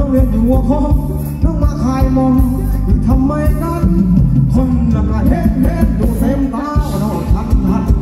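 Loud, upbeat Thai ramwong dance music from a live band, with a steady beat and a singer's voice over it.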